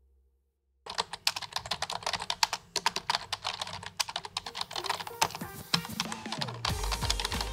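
Fast typing on a computer keyboard: a quick, uneven run of key clicks starting about a second in.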